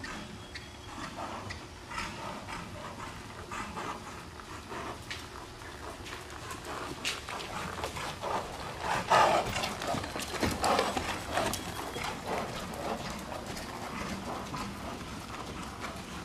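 Hoofbeats of a dressage horse working on the sand footing of an indoor arena: soft, repeated thuds in a steady rhythm, with a louder stretch about nine seconds in.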